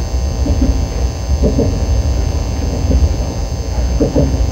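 KTX high-speed train in motion, heard inside the passenger cabin: a steady low rumble with a constant high electrical hum over it.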